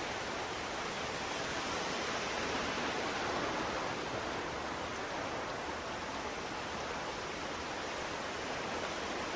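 Steady, even rush of small waves washing onto a sandy beach.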